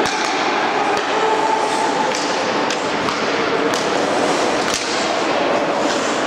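Youth ice hockey game sound in a rink: a steady scrape of skates on the ice with distant voices, broken by sharp stick-and-puck clacks about half a dozen times.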